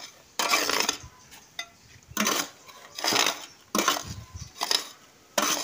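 A hand scraper dragged back and forth across the mould of a concrete block press, levelling the damp block mix in it: gritty scraping strokes, about one a second.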